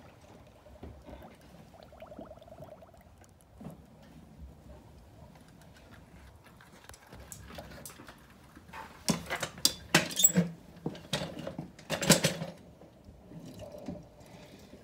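Faint squeaking and gurgling from a newly installed PSC power-steering system as the steering is turned lock to lock with the engine off: air being worked out of the fresh fluid. A run of loud, sharp knocks and clatters comes about two-thirds of the way through.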